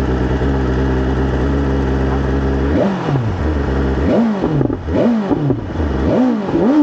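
BMW S1000RR inline-four with an SC-Project GP70-R slip-on exhaust idling steadily, then blipped several times from about three seconds in, each rev climbing sharply and dropping back to idle.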